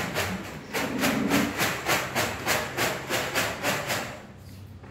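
Paper draw slips swishing inside a lidded plastic drum as it is shaken by hand in quick, even strokes, about four a second, to mix the lottery entries. The shaking stops about four seconds in.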